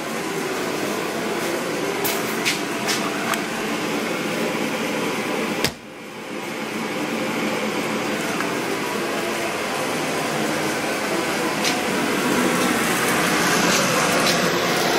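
A Mr. Heater forced-air shop heater running: a steady blower-and-burner noise with a low hum. There is a click and a brief dip about six seconds in.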